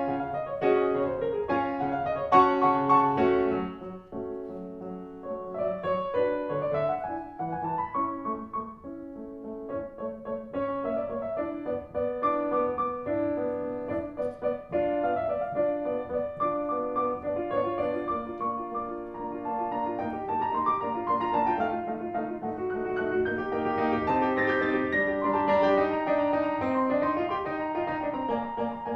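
Piano music, flowing runs of notes rising and falling.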